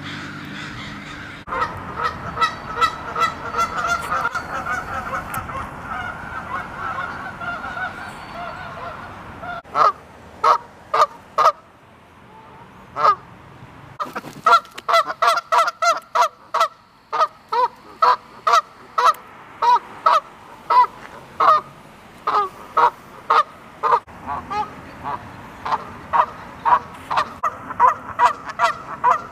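A flock of Canada geese honking. For the first several seconds many birds call over one another. After a short lull comes a long run of short, loud honks, about two a second.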